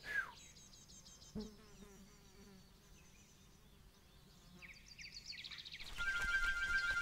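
Insects chirping and buzzing as an outdoor ambience, faint and rapidly repeating at first, then much louder from about six seconds in with a steady high buzzing note.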